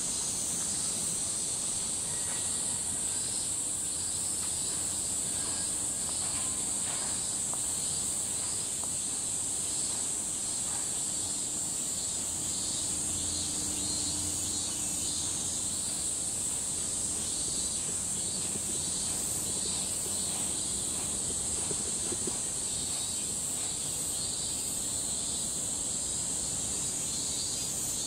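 A steady, high-pitched chorus of cicadas singing in the trees, with a second, pulsing call a little lower in pitch beneath it.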